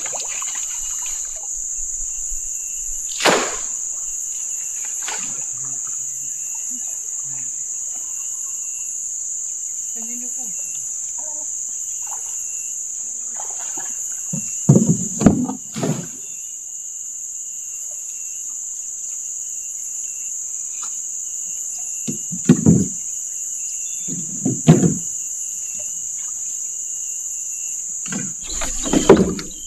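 Steady high-pitched drone of insects, broken by a few loud hollow knocks and thumps of bamboo poles against a wooden boat: one early, a cluster midway, two more later and one near the end.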